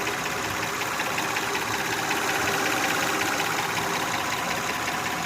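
Honda Odyssey engine running steadily with a loud, rapid ticking knock. The noise has grown louder over about three years, and the owner suspects valve clearance, thinking a valve adjustment may help.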